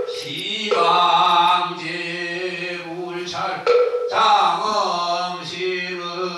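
Korean Buddhist monks chanting in unison, slow held notes that shift in pitch over a steady low tone.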